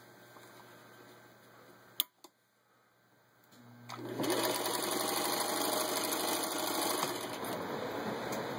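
1947 Singer 15-91 sewing machine starting up about three and a half seconds in, then running steadily as it stitches through six layers of denim. A single sharp click comes just before it, about two seconds in.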